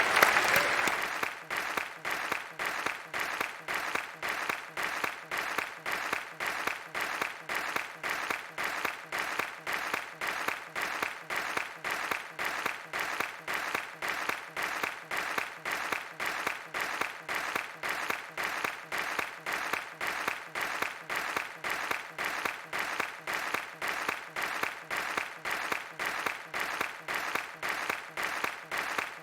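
Audience applause that thins out about a second in, then carries on as an evenly paced, regular clapping.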